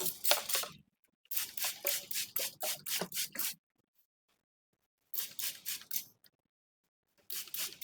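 Fingers rubbing briskly through hair and over the scalp during a head massage, a scratchy, hissing sound in quick strokes about four a second. It comes in four bursts with short pauses between them.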